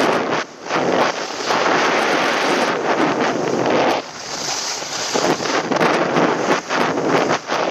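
Wind rushing over the microphone of a camera carried by a skier moving down a groomed piste, mixed with the hiss of skis sliding on the snow. The noise rises and falls with the turns, dipping briefly about half a second in and again about four seconds in.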